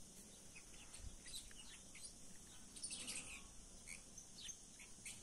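Faint bird chirps: short high notes dotted through, busiest about three seconds in, over a faint steady hiss.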